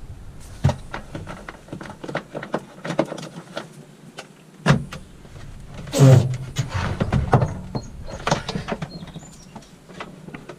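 Knocks, clunks and scraping as a built-in microwave is worked loose and pulled out of its cabinet, with the loudest clunk about six seconds in.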